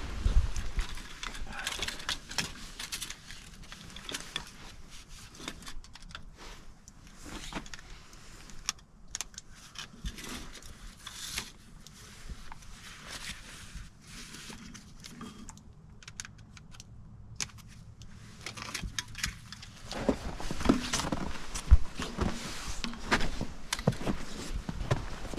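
Hand tools clinking and rattling against metal fittings while fuel injector lines are worked on, with no engine running. The knocks get louder and come more often near the end.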